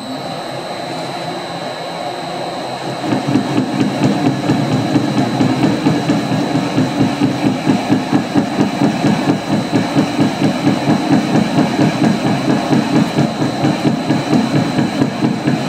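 Metal lathe running with a steady high whine. About three seconds in, a parting tool starts cutting into the spinning metal bar, adding a louder, fast, even pulsing that continues.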